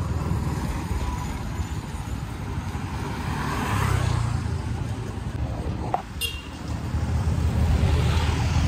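Street traffic noise: motor vehicles running on a town street, with a steady low rumble and a sharp click about six seconds in.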